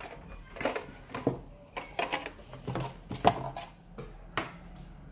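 Plastic packaging being pulled off a new pair of headphones: irregular crinkling and clicking.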